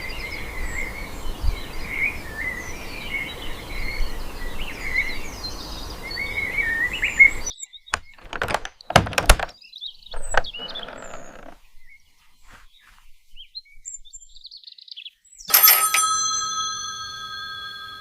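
Birds chirping over a steady outdoor hiss that cuts off abruptly, followed by a handful of sharp thuds. Near the end a single ringing chime is struck once and fades slowly.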